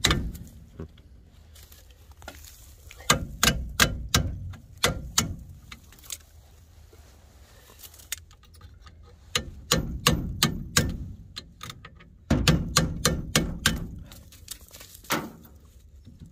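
Hammer blows on metal in several bursts of quick, sharp strikes, with pauses between bursts.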